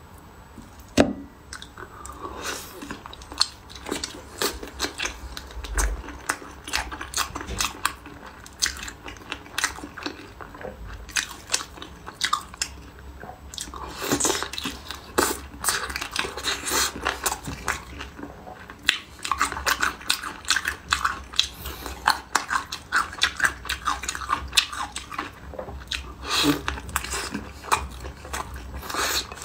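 Eating sounds of a person biting into and chewing crayfish in sauce: many short, irregular clicks and crunches of mouth and shell.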